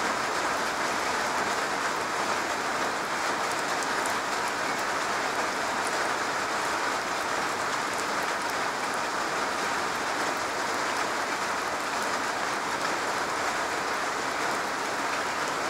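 Steady rain falling on a garage roof: an even, unbroken wash of drops, with a few sharper drop ticks now and then.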